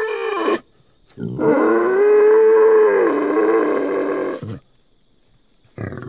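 Wild boar calling: the end of one call, a short pause, then one long pitched call of about three seconds that rises and then eases down. Another call starts just before the end.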